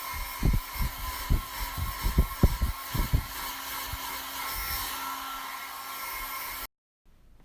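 A small electric motor and fan whirring steadily, with a few faint steady whine tones, cutting off abruptly near the end. Low thuds of air buffeting the microphone come and go in the first few seconds.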